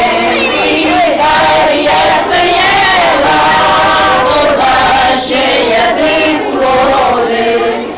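A group of men and women singing together in chorus, loud and continuous.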